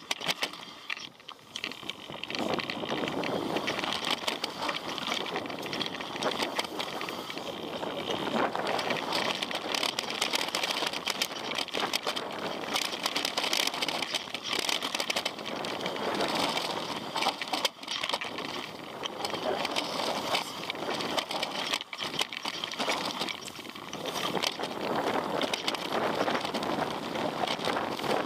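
Mountain bike riding down a rough trail: tyres rolling over stones and dirt and the bike rattling with many small knocks, the noise swelling and easing with the terrain.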